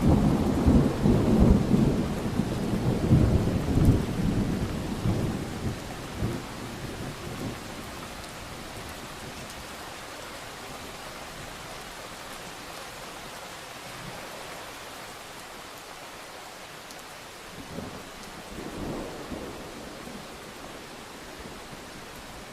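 Thunderstorm: a long roll of thunder rumbles and crackles over the first six seconds or so and fades, leaving steady rain hiss, and a second, shorter rumble of thunder comes near the end.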